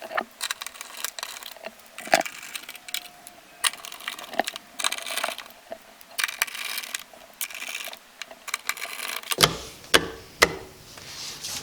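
Screwdriver driving the small screws into a four-gang light-switch wall plate, with repeated sharp metal clicks and stretches of scraping as the screws turn in.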